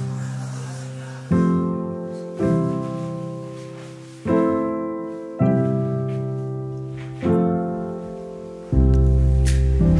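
Background music: slow piano chords, six of them, each struck and left to fade, with a deep bass note joining near the end.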